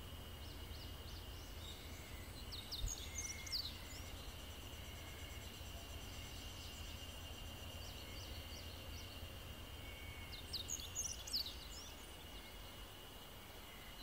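Roadside ambience: a steady high-pitched insect drone with a low rumble underneath, and two short bursts of bird chirps, one a few seconds in and one about eleven seconds in.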